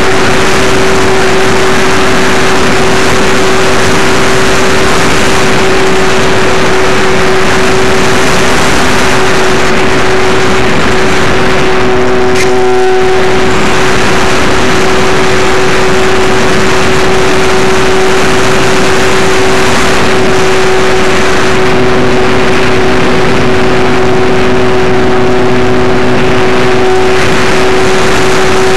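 Apprentice S15e's electric motor and propeller whining at a steady pitch, heard from a camera riding on the plane, under loud wind rushing over the microphone.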